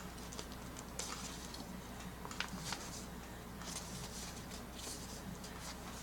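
Faint rustling of paper and plastic packaging with scattered light clicks as items are handled, over a low steady hum.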